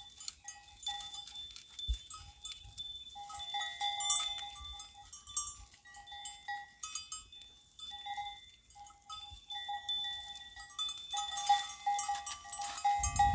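Small metal bell on a browsing goat, clinking irregularly as the animal moves its head to feed.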